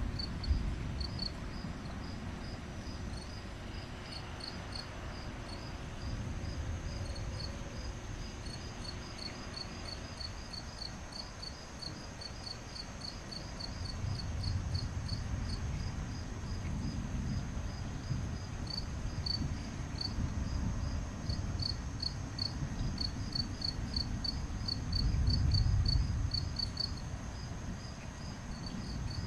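Crickets chirping at a steady pace of about two to three chirps a second, over a continuous high insect trill. Low rumbles swell up about halfway through and again, loudest, near the end.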